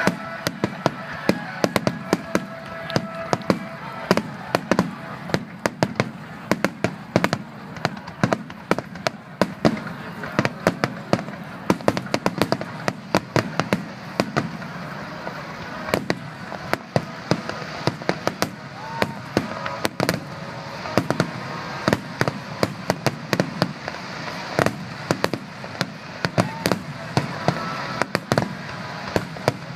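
Fireworks display: a dense, irregular barrage of sharp bangs and crackles, several a second.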